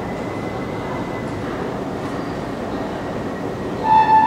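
Steady rumbling of a metro train in the station, with a faint high whine fading away in the first second or so. Near the end a loud electronic chime tone sounds.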